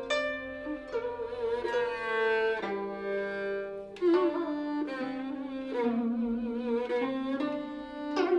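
Guzheng and yehu (coconut-shell fiddle) playing a slow, sad Cantonese melody together: the yehu's bowed line with vibrato over plucked guzheng notes.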